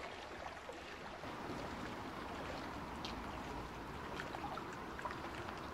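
Gentle water lapping and trickling around a moored boat: a steady low wash with a few faint ticks.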